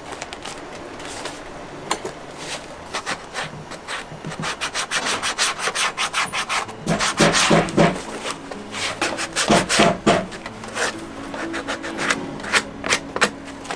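Hand rubbing briskly over the leather of a handmade hiking boot, a fast run of scraping strokes that grows louder and quicker about four seconds in.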